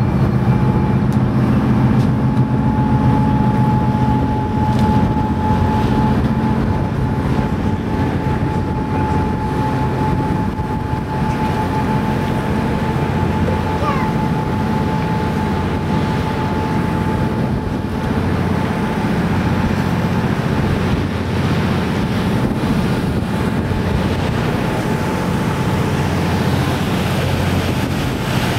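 Boat engine running steadily: a constant low drone with a thin steady whine above it. Wind buffets the microphone.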